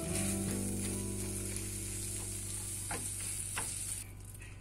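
Spinach and cheese filling sizzling in a hot frying pan as a wooden spatula stirs it, with a couple of short scrapes of the spatula against the pan. The sizzle cuts off about four seconds in.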